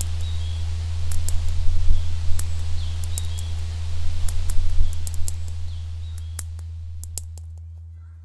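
A steady low drone under scattered sharp clicks and a few faint short chirps, fading gradually over the second half.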